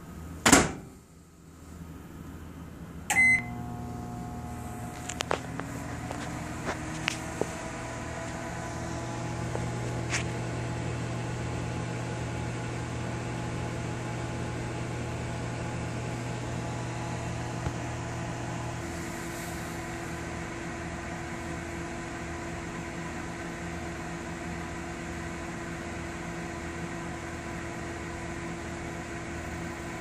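Microwave oven door banged shut, a keypad beep about three seconds in, then the oven starts and runs with a steady hum and fan noise. A few sharp clicks come in the next several seconds, and the deepest part of the hum drops out around nineteen seconds in while the rest keeps running.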